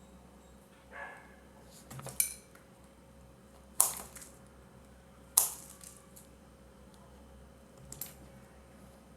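Small hard plastic and metal parts and a hand tool clicking and clattering while being handled on a work surface during assembly of a three-pin plug top: about five separate sharp clacks, the loudest two near the middle, over a steady low hum.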